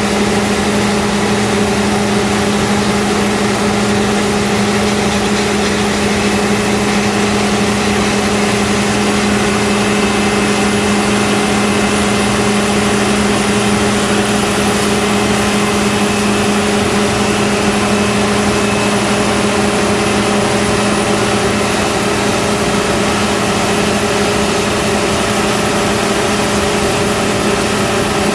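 John Deere 9770 combine running steadily during wheat harvest: a constant engine drone with a strong low hum and a faint high whine, unchanging in pitch.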